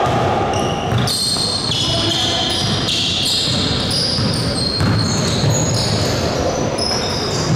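Basketball game sounds on an indoor court: the ball bouncing with dull thumps, sneakers squeaking sharply and often on the floor, and players' voices.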